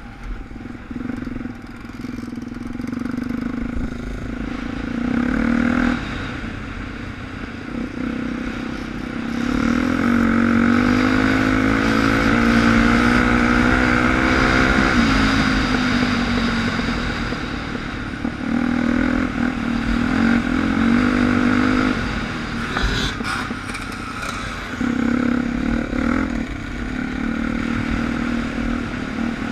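Suzuki DR 350 single-cylinder four-stroke dirt bike engine running under the rider, heard from on board: revving up and easing off over rough ground, with a long climb in pitch about a third of the way through before it drops back. A brief clatter of knocks about three-quarters of the way through.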